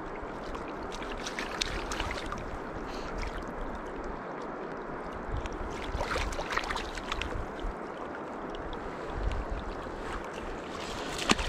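Steady rush of river current, with a few brief splashes as a rainbow trout is handled and unhooked in a landing net.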